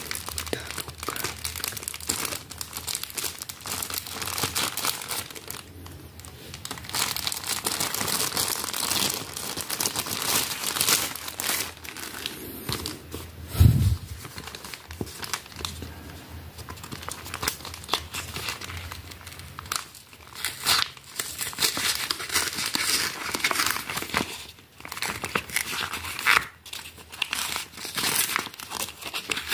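Plastic packaging crinkling and rustling by hand as a clear plastic bag and a red plastic courier mailer are handled and picked open, in irregular bursts throughout. One dull thump comes about halfway through.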